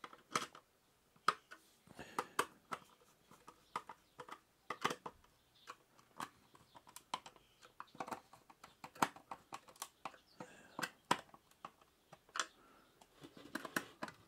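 Irregular small clicks and taps of a screwdriver driving small crosshead screws into the plastic base of a soup maker, with hands handling the plastic; the screws are not being over-tightened.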